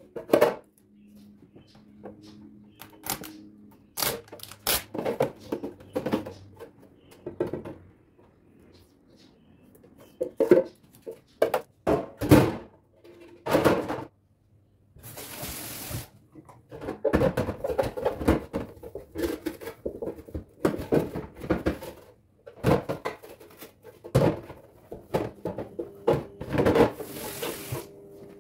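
Kitchen items being handled and set down: a run of sharp knocks and clicks with stretches of clattering, and a brief rustle about halfway through.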